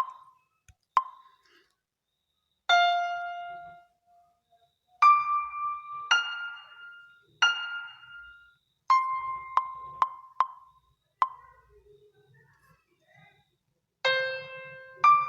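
Smartphone sounding a series of short, piano-like notes at different pitches, each dying away, spaced a second or so apart, with quick clicks from screen taps mixed in.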